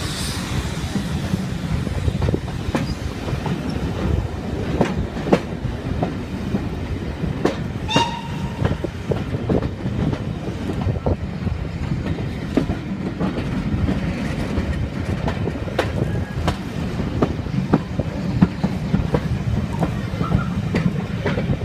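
Passenger carriage of a heritage train rolling out of a station, a steady low rumble with its wheels clicking irregularly over rail joints and points. A brief high squeal comes about eight seconds in.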